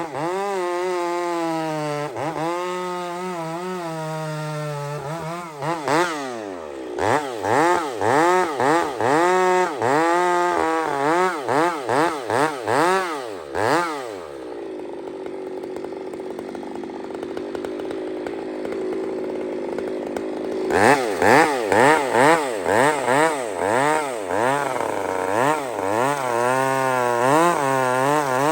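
Two-stroke gas chainsaw running. It runs steadily for a few seconds, then revs up and down in quick blips. In the middle it holds a steadier, lower note, then goes back to quick revving near the end.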